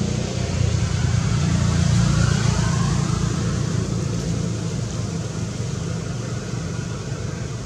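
An engine running steadily with a low hum that slowly fades toward the end.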